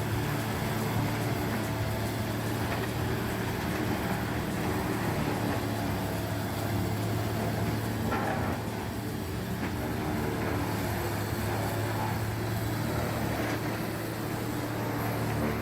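HD9 tub grinder running steadily while processing wood: a constant low engine drone under a dense wash of mechanical grinding noise.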